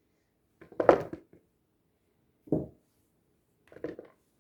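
Potatoes knocking into a bowl on kitchen scales as they are loaded for weighing: three separate clunks a second or more apart.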